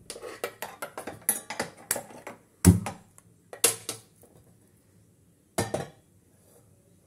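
Stainless steel cookware clattering: a quick run of light taps and clinks, then three louder metallic knocks spaced about a second apart.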